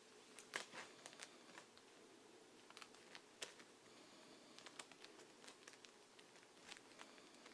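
Comic books being handled and shuffled: faint, scattered rustles and light taps.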